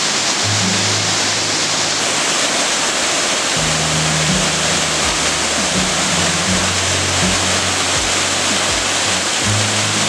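Waterfall rushing loudly and steadily down a rocky gorge. Background music plays over it, with low bass notes and a steady beat that comes in about three and a half seconds in.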